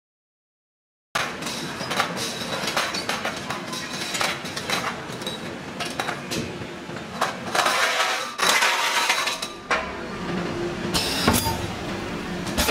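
Automatic weighing and packing machine for plastic parts running: a dense clatter of small plastic parts clinking and rattling, with many sharp clicks and knocks from the mechanism. It starts after about a second of silence.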